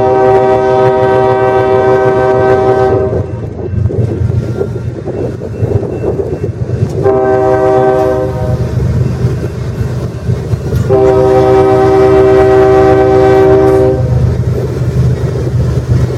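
Locomotive air horn sounding a chord of several tones: a long blast that ends about three seconds in, a short blast about seven seconds in, then another long blast, over the steady low rumble and clatter of the passing train.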